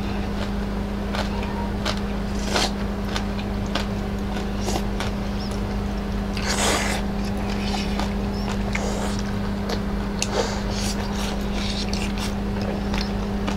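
Close-up eating sounds: chewing, mouth noises and spoon clicks against a bowl, over a steady low hum. There is one louder, longer mouth noise about six and a half seconds in.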